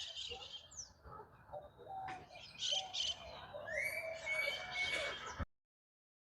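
Birds chirping and calling in short, high notes, with a longer held whistle near the end, over a faint outdoor background. The sound cuts off suddenly a little over five seconds in.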